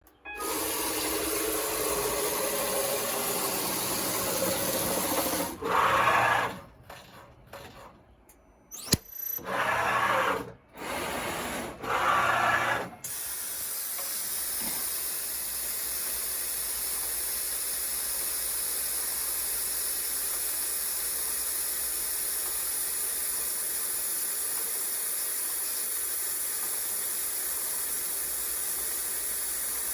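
CNC router machinery running: a steady motor noise, then a run of short, separate movement sounds with a sharp click about nine seconds in. After that comes a steady high hiss, typical of the router's spindle running on.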